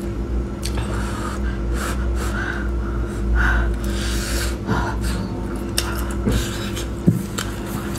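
Close-up eating sounds of a person biting into and chewing a pork sausage: wet mouth clicks and sharp, breathy puffs of air in and out through the mouth, the loudest breath a little past the middle.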